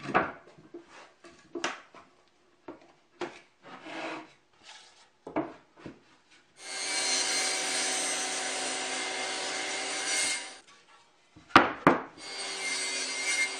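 A circular saw mounted under a table as an improvised table saw, running and cross-cutting wooden boards. First several seconds of scattered knocks and clicks as wood and a clamp are handled, then the saw runs for about four seconds, stops, gives a couple of sharp knocks, and starts again near the end.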